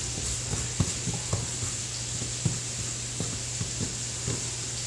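Soft, scattered taps and clicks of seasoned potato pieces being pushed around and set down on a parchment-lined sheet pan, over a steady high hiss and a low hum.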